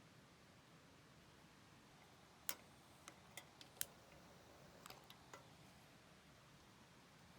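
About eight short, sharp clicks and ticks, scattered irregularly over a few seconds against a near-silent background.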